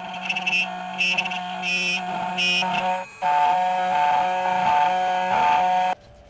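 Background music of held, changing tones that cuts off abruptly near the end.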